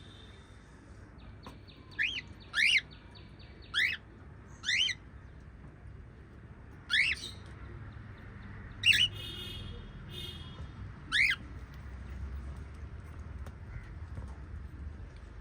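Small pet parrots calling: seven loud, shrill, sweeping chirps spread through the first eleven seconds, with softer buzzy chatter between some of them.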